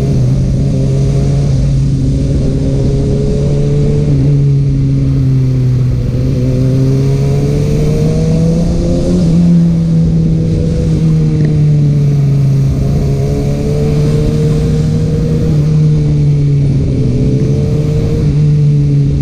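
Kawasaki Ninja ZX-6R's inline-four engine running under way through an Akrapovic exhaust. Its pitch rises and falls gently, highest about halfway through, with no sharp revs.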